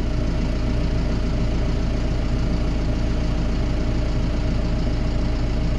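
Tractor engine running at a steady speed, an even low drone with a few steady tones over it.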